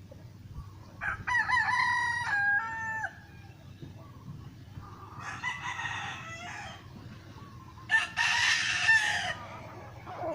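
Rooster crowing three times, each crow a long pitched call that drops at the end; the middle crow is fainter.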